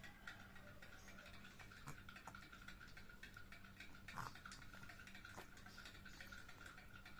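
Near silence: room tone with a faint steady high whine and scattered faint ticks and small clicks, one a little louder about four seconds in.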